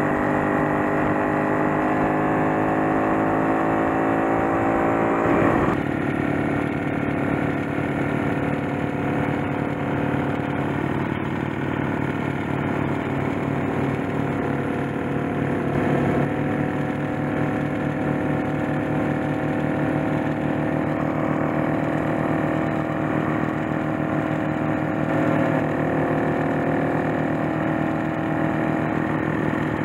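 Motorcycle engine running at road speed with a steady pitched note that rises as the bike accelerates over the first five seconds. The sound changes abruptly about six seconds in and again about sixteen seconds in.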